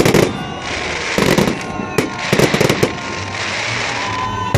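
Fireworks salute: sharp bangs of shells bursting, several in quick succession, each followed by a spell of crackling. Thin whistling tones come in near the end.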